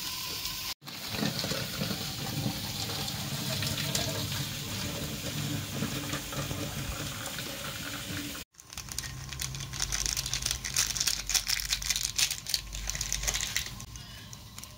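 Hot cooking water splashing and draining into a stainless steel sink as boiled instant noodles and lettuce are tipped into a wire-mesh strainer, with dense splashing and dripping in the second half. Two brief dropouts break the sound.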